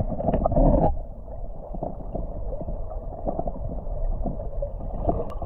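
Shallow, stony stream heard through a camera held underwater: a muffled, low burbling rumble with scattered small clicks and knocks. It follows a louder, brighter rush of water in the first second.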